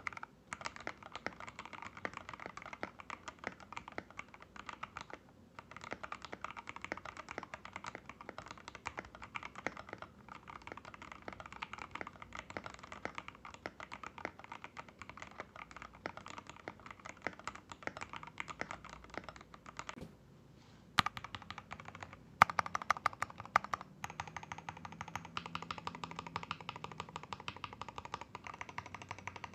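Fast typing on a mechanical keyboard fitted with AKKO x TTC Demon linear switches: a dense, continuous run of key clacks. It breaks off briefly about 20 seconds in and resumes with a few louder strikes.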